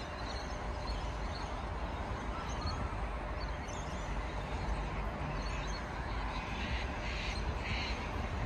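Outdoor ambience with birds calling: a bird gives three calls in a row near the end, over a steady low rumble.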